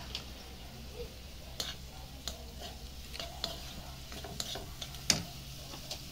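A plastic spoon stirring meat in a wok, with irregular sharp clicks and scrapes against the pan, the loudest about five seconds in, over a low sizzle of frying.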